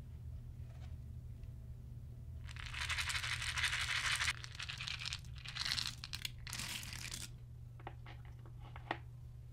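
Small plastic beads poured from a cup into a glass bowl of clear slime: a dense rattle lasting about two seconds, then a few shorter shakes and scattered clicks as the last beads drop. A steady low hum runs underneath.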